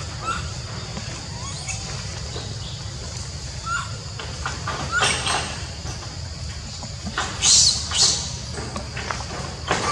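Macaques on a corrugated metal roof: a baby macaque gives short high squeaks, and a few noisy scraping and rattling bursts on the sheet metal, loudest about seven and a half and eight seconds in, as monkeys scramble and climb at the roof edge.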